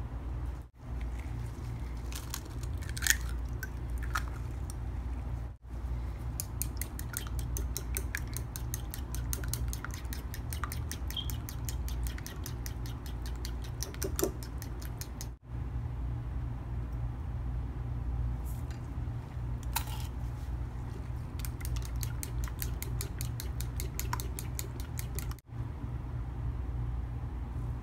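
A metal spoon beating raw eggs in a bowl: quick, rhythmic clicks of the spoon against the bowl, coming in several runs over a steady low hum.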